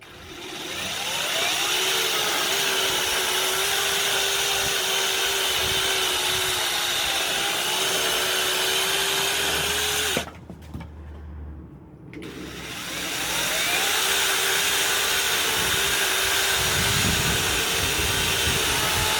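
Cordless mini chainsaw's electric motor and chain spinning up with a rising whine and running steadily while cutting through a branch. It stops suddenly about ten seconds in, then spins up again about two seconds later and runs on.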